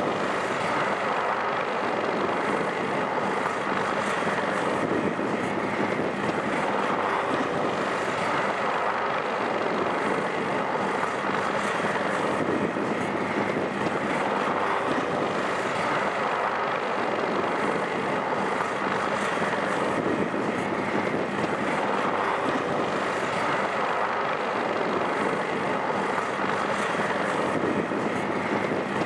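MH-60S Sea Hawk helicopters running, a steady twin-turbine and rotor noise with a faint steady hum in it, swelling and easing about every four seconds.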